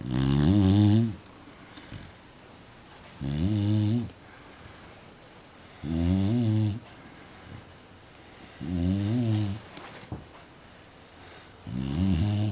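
A Tibetan Mastiff snoring while asleep: five loud, rattling snores about every three seconds, each lasting about a second, with softer breaths between them.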